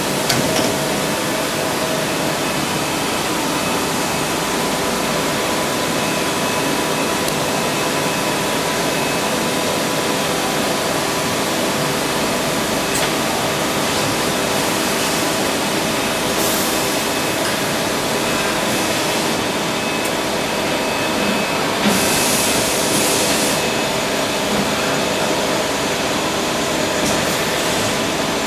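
Steady mechanical hum of a CNC machining centre and its automation cell running, with a few short hissing bursts about halfway through and again about two-thirds of the way through.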